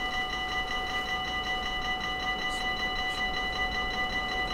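Railway level crossing warning bell ringing in rapid, even strokes, sounding while the barriers are down for an approaching train.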